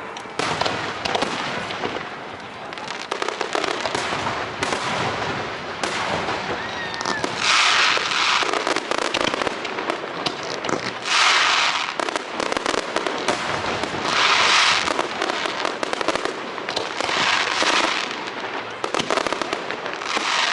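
Aerial fireworks display: a rapid string of shell bursts and sharp bangs, with a loud rush of noise about a second long every three seconds or so.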